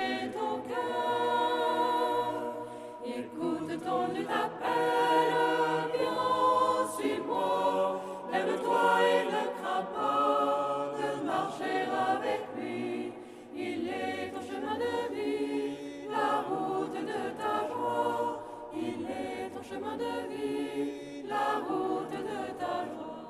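Choir singing a French hymn, several voices together in a steady flowing melody with short breaths between phrases.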